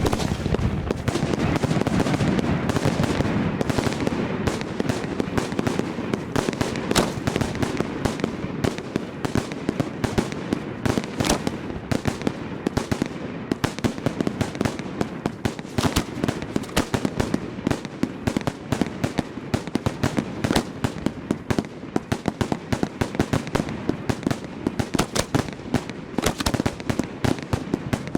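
Hand-fired 1.3G display fireworks going off in a dense, rapid barrage of overlapping bangs, cracks and crackle, many reports a second. The first few seconds carry a heavier rumble of bursts.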